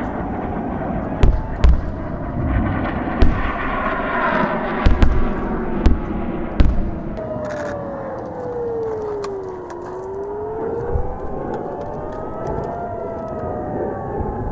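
Air-raid sirens wailing, several tones rising and falling over one another. In the first half, about seven sharp booms from rocket interceptions bursting in the sky.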